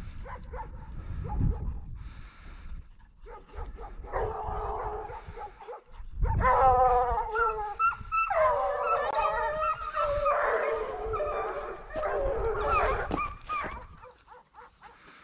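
A pack of Ariègeois scent hounds baying, giving tongue as they follow the quarry's scent line towards the hunter. Their cries come in repeated, overlapping bouts from about four seconds in, strongest in the middle, and die away near the end.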